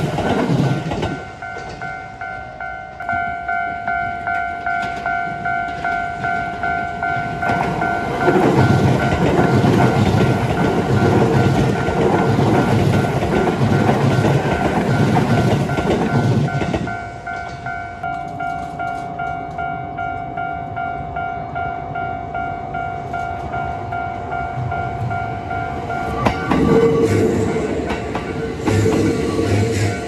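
A Japanese railway level-crossing alarm ringing on and on, about two strokes a second, while Kintetsu electric trains pass. The tail of a limited express clears at the very start. A commuter train runs over the rail joints with a rhythmic clickety-clack from about 8 s to 17 s, and another commuter train comes through close by from about 26 s.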